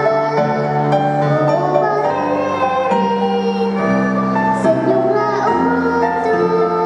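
Children's song: held instrumental chords over a bass line that moves every second or so, with a girl's singing voice.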